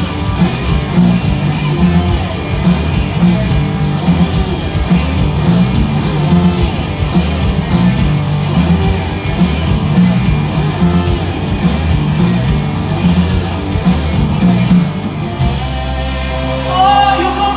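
Live blues-rock band through loud stage amplification: electric guitars, bass guitar and drum kit playing, with a steady beat of cymbal strikes. About fifteen seconds in, the drums stop and a held low note rings under a sliding, bending melodic line.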